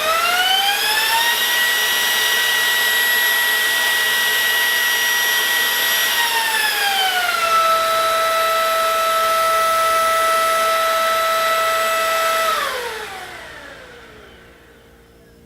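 Ryobi P718K cordless stick vacuum's motor spinning up to a high whine that sounds like a jet taking off. It holds steady, steps down to a lower pitch about seven seconds in as it is switched to its other speed, and is switched off and winds down near the end.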